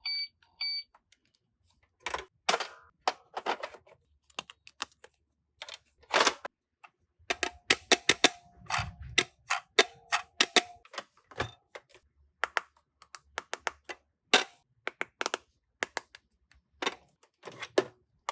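Toy cash register being played with: a run of irregular plastic clicks from its keys and parts being pressed, a short electronic beep at the very start, and a steady electronic tone lasting about three seconds midway.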